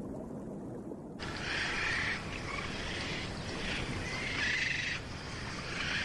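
Seabirds calling over a steady hiss of wind and sea, starting abruptly about a second in, after a low, dull rumble.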